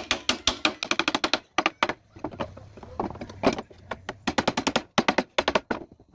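A hammer knocks a wooden strip into place in a wooden window-shutter frame: sharp wood-on-wood knocks in quick runs of several a second, with short pauses between the runs.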